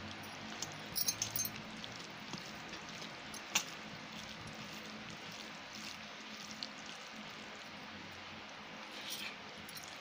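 Fingers mixing rice and chicken curry by hand on a steel plate, with soft squishing and a few light metallic clinks against the plate: a cluster about a second in, one at about three and a half seconds, and a few more near the end.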